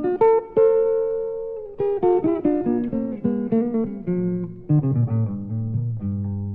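Solo jazz piano playing a phrase of single struck notes that steps downward, settling onto low held notes near the end.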